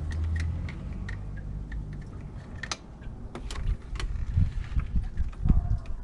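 Hand work on hoses and fittings: scattered light clicks and clinks of tools and parts being handled, with low knocks and rumbling about four to six seconds in.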